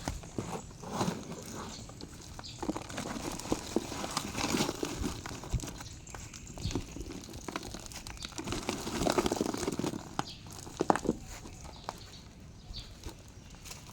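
Irregular rustling and crinkling with scattered knocks and scrapes.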